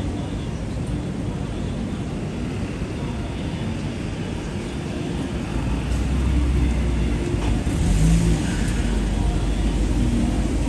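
City street traffic: road vehicles running past, with a deep engine rumble that comes in louder about six seconds in and holds.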